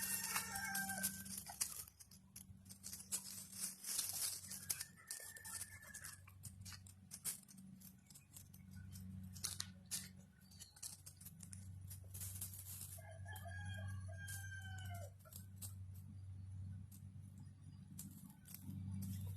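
Hound puppies howling in a few drawn-out, slightly falling calls, one near the start, a shorter one around five seconds in and a longer one past the middle, with scattered clicks and rustling over a steady low hum.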